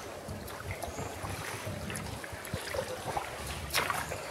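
A canoe being paddled: light paddle splashes and drips scattered over a low wind rumble on the microphone, with one sharper, louder noise near the end.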